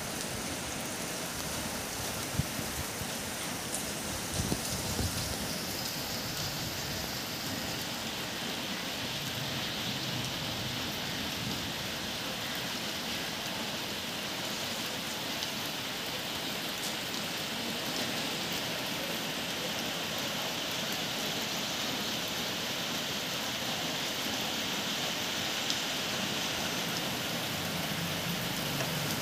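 Steady rain falling, an even hiss, with a few sharp ticks in the first five seconds.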